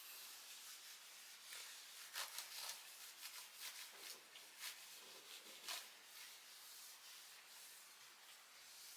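Faint rubbing of a damp cloth wiping a laptop's casing, in a series of short, uneven strokes.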